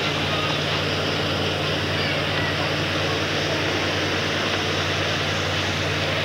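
Steady rushing noise with a low, even hum beneath it and faint voices of a watching crowd.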